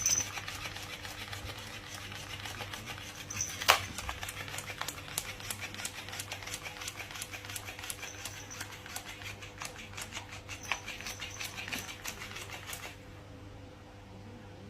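Rapid, irregular clicking and scratching, likely a cat playing with a toy, with one louder knock about four seconds in. It stops suddenly near the end, leaving a steady low hum.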